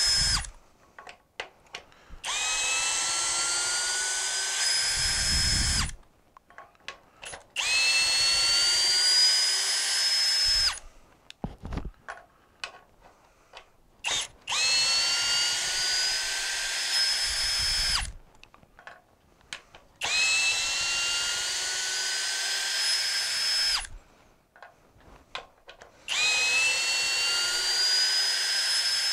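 Cordless drill-driver backing 3-inch by 3/8-inch lag bolts out of a doubled-up 2x4: five runs of about three to four seconds, each starting with a motor whine that rises in pitch and then holds steady. Short pauses with clicks and knocks come between runs as each bolt is pulled free and set down.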